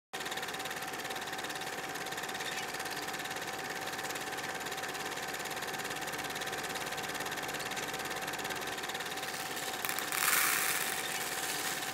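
A small electric motor whirring steadily. About ten seconds in there is a short rattle of dried popcorn kernels being poured into a plastic cup.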